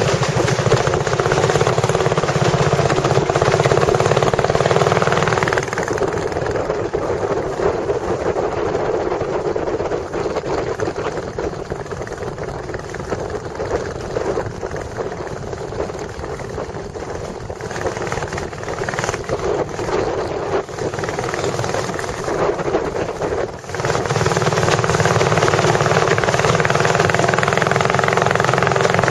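Boat engine running steadily. It eases off about six seconds in and comes back up to full power near the end.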